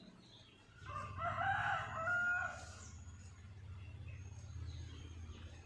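A rooster crows once, starting about a second in and lasting about a second and a half.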